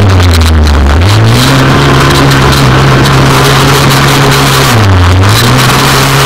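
Off-road racing buggy's engine running hard under throttle, heard loud from a camera mounted on the buggy. Its pitch drops for about a second near the start and again about five seconds in as the throttle is eased, then climbs back each time.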